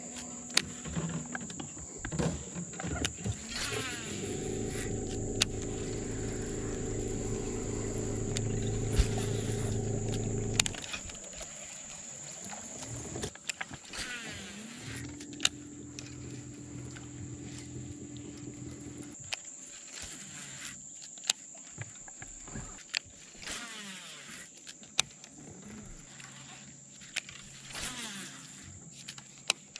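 Electric trolling motor humming in two runs, from about four to ten seconds in and again from about fifteen to nineteen seconds in, each starting with a rising whine as it spins up, over a steady high-pitched insect drone. Scattered sharp clicks.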